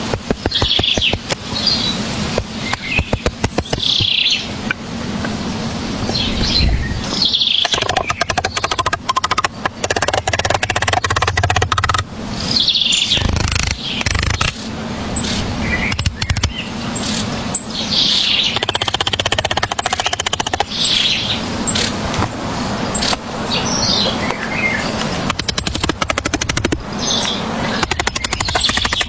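Birds chirping repeatedly, over many short clicks and knocks.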